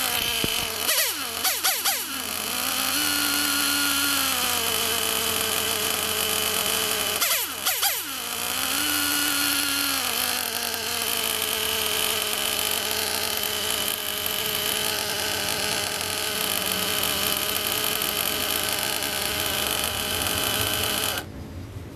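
HYPER 28 nitro engine of an RC buggy running while its three-needle carburettor is being tuned. Its pitch drops sharply and picks up again about a second in and again around seven seconds, then it runs steadily until it cuts off suddenly near the end.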